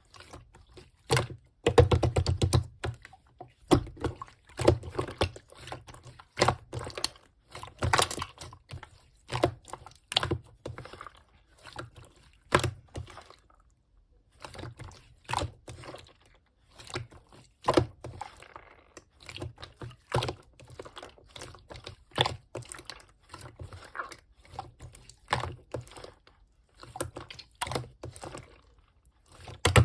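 Close-up hand-handling noises: irregular clusters of quick taps and clicks with occasional soft thuds, typical of handling crafting materials on a table.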